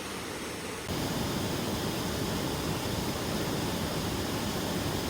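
Waterfall rushing: a steady noise of falling water that jumps louder about a second in.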